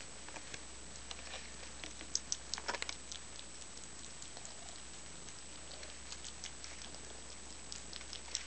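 A kitten chewing cat food: a run of small, wet mouth clicks and smacks, busiest about two to three seconds in.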